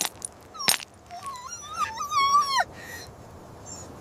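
A dog whimpering in pain: a few short, high whines that waver in pitch, the last held for about half a second before dropping away, with a sharp click near the start.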